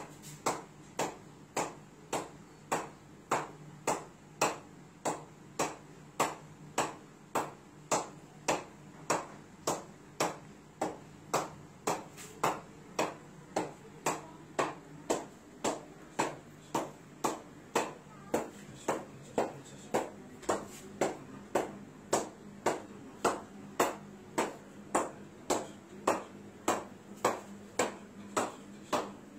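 A ball bouncing repeatedly on the face of a wooden cricket bat as it is kept in the air: a steady run of sharp wooden knocks, about two a second.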